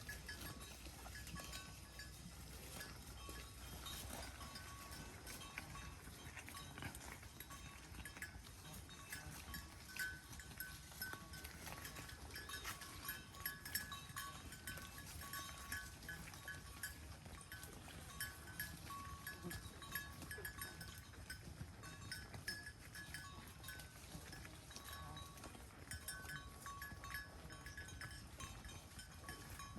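Cattle chewing hay: soft, irregular crunches and clicks throughout, with faint high-pitched tones that come and go.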